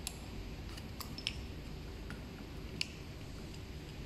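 A few sharp, light clicks and ticks of a hex key and small handlebar parts being handled while a throttle is clamped onto an e-bike handlebar, the loudest about a second in and near three seconds in, over a steady low background hum.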